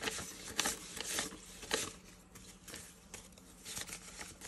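Paper banknotes rustling and flicking as a five-dollar bill and four one-dollar bills are counted out by hand. The crisp rustles come thick in the first two seconds, then thin out to a few.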